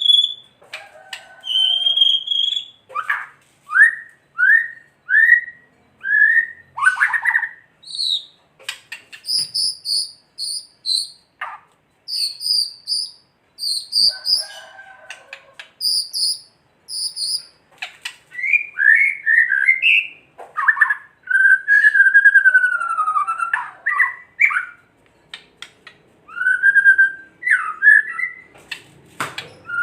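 White-rumped shama singing a varied song of loud whistled phrases. In the middle it sings a run of quick, repeated high notes in short groups. Later come long sliding, warbling whistles.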